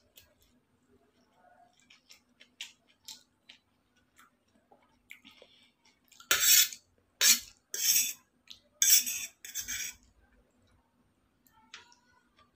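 Noodles being slurped off a fork, mukbang-style, in a run of about five loud, short pulls from about six to ten seconds in. Around them come soft chewing and light clinks of a steel fork against steel plates.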